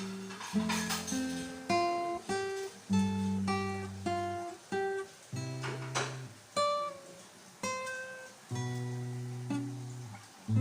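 Guitar music: chords picked or strummed one after another, each ringing out and dying away before the next.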